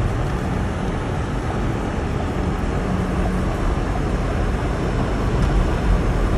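Steady road and engine noise inside a moving car's cabin: a constant low rumble of tyres on the road with a hiss above it.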